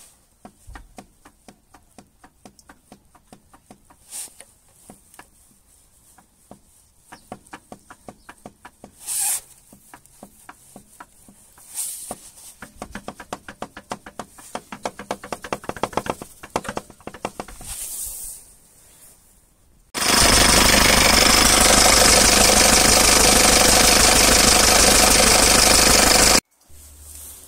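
4D56-family (Hyundai D4BF) diesel engine knocking, first in scattered knocks, then in a fast, even run of knocks: the knock of a cracked cast-iron crankshaft. About two-thirds of the way through, a much louder steady rushing noise takes over for several seconds and cuts off suddenly.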